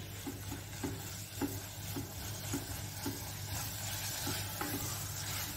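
Minced mutton sizzling as it is fried (bhuna) in a nonstick pot, cooking in the water it has released, while a silicone spatula stirs it with soft scrapes about twice a second.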